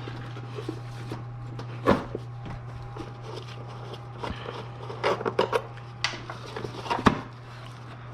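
Scattered clicks and knocks of parts being handled while a bolt is started by hand in a car's engine bay, with the loudest knocks about two seconds in and about seven seconds in. A steady low hum runs underneath.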